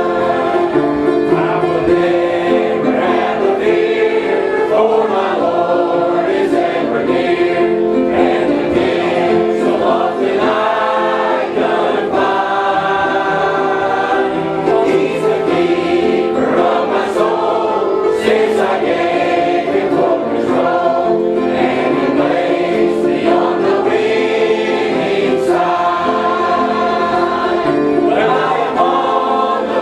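Many voices singing a gospel song together, with long held notes.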